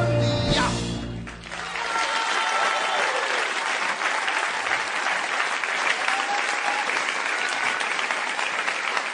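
A live band's final chord rings out and stops within about the first second, then an audience applauds steadily, with a few faint whistles.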